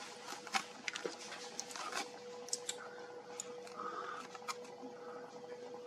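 Quiet indoor room tone: a steady faint hum with scattered small clicks and ticks.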